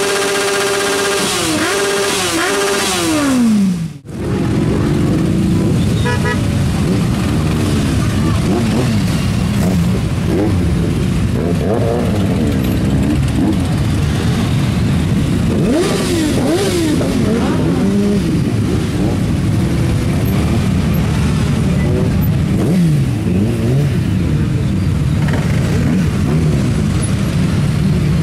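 A crowd of motorcycle engines idling and being revved together, their pitches rising and falling over a steady rumble. In the first few seconds one engine is held at high revs, then falls away as the throttle is released, and the sound dips sharply for a moment about four seconds in.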